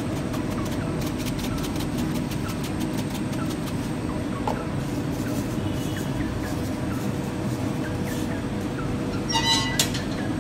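Steady low rumble of bakery machinery, such as the oven's burner or an extractor fan, running throughout, with faint scattered clicks and a short high-pitched squeak about nine seconds in.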